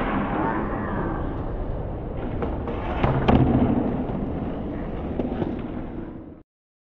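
Skateboard rolling on concrete: a rough, rumbling roll with a few sharp clacks a little past halfway. It cuts off suddenly near the end.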